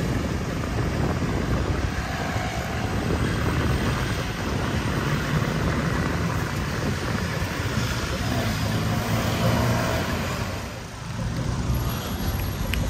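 Steady low rumble of running vehicle engines, dipping briefly near the end.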